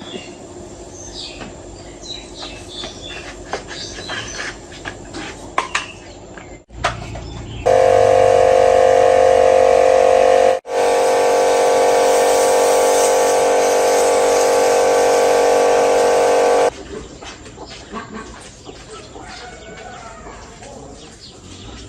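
Repaired air sprayer running: a loud, steady, pitched machine sound with a hiss of spray for about nine seconds, broken by a split-second gap partway through. Before it come light clicks and taps of handling over a faint hum, and a few more clicks after it stops.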